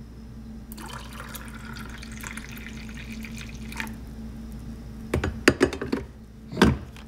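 Frothed milk pouring from a jug into a ceramic mug for about three seconds. Then several sharp clacks and one louder knock as the jug is handled and set down, over a low steady hum.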